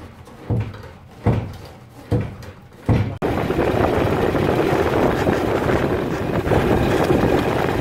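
A few dull thumps. Then, cutting in suddenly about three seconds in, the steady rush of a lowered Citroën 2CV on the move: tyre and road noise with wind, picked up close to the rear wheel.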